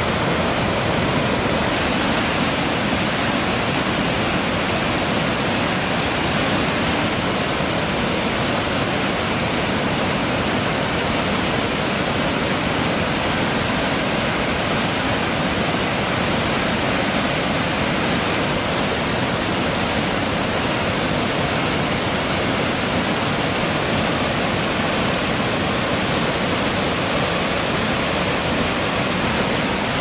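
Waterfall in flash flood: a muddy torrent rushing over rock ledges in a steady, unbroken rush of water.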